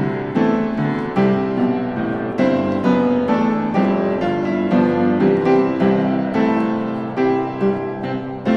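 Background piano music, notes played in a gentle flowing pattern.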